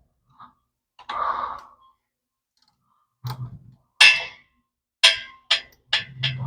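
A few sharp clicks and knocks of metal tools and parts being handled while an exhaust header is fitted, coming irregularly and closer together in the second half.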